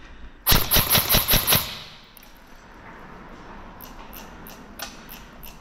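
Airsoft gun firing a rapid burst lasting about a second, shot after shot in quick succession, followed by faint scattered sharp ticks.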